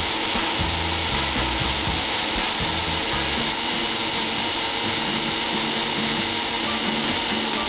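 Electric mixer grinder (mixie) running steadily at full speed, its small stainless-steel jar grinding roasted spices, dried chillies, tamarind and a little water into a wet masala paste.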